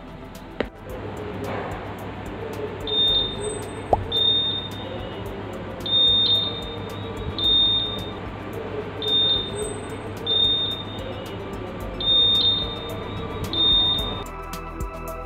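Piezo buzzer of an LM358 IR proximity sensor circuit (touchless door bell) giving short, high-pitched beeps, about a dozen in small groups every few seconds, sounding as the IR sensor detects something in front of it. Music comes in near the end.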